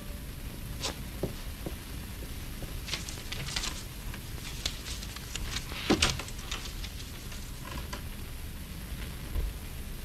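Paper rustling and light knocks as sheets and letters are handled on a table: short, crisp rustles clustered from about three to seven seconds in, the loudest near six seconds.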